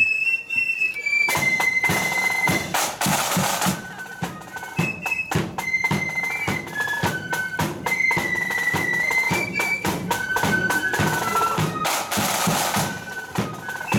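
Marching flute band playing a tune: a high flute melody over snare drums and a bass drum beating a steady march rhythm.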